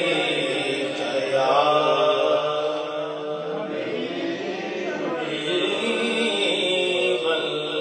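A man's solo voice chanting a naat, a devotional Urdu/Siraiki hymn in praise of the Prophet, in long drawn-out notes that bend up and down.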